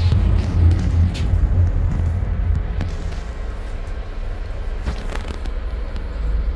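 Temporary RECO traction elevator car travelling between floors: a steady low rumble, loudest in the first couple of seconds and easing off, with a few faint clicks.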